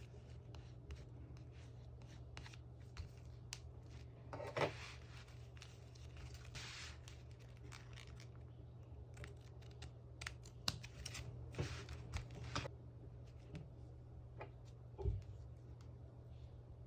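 Paper crafting at a desk: paper and stickers being handled, with two stretches of rustling or tearing, scattered small clicks and taps, and one dull thump near the end, over a steady low hum.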